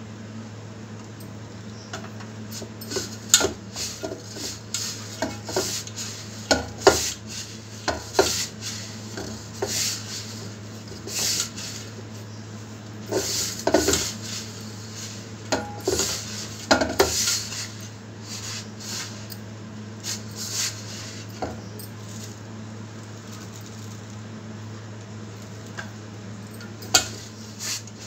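Hands working a crumbly biscuit dough in a stainless steel bowl: irregular knocks, clinks and scrapes against the steel, over a steady low hum.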